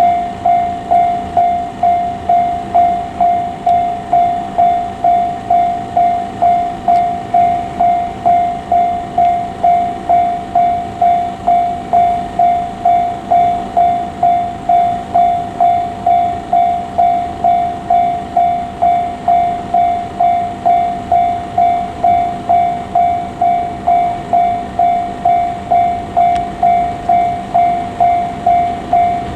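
Japanese level-crossing warning bell ringing steadily, one clear tone struck about three times every two seconds, each strike dying away quickly.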